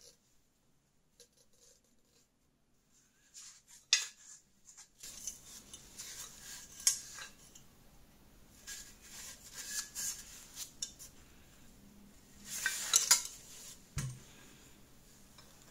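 A rusty brass blow torch being handled: light metal clinks and taps from its fittings and pump handle, scattered after a few quiet seconds and bunched up near the end, with a dull thump just before the end.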